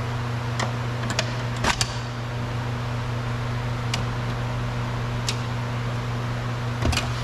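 Steady low hum, with scattered short plastic clicks and taps as car door trim pieces and cable connectors are handled and pulled free.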